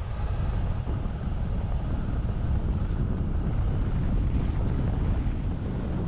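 Steady road and wind noise of a vehicle driving at speed: a continuous low rumble with a hiss of wind on the microphone.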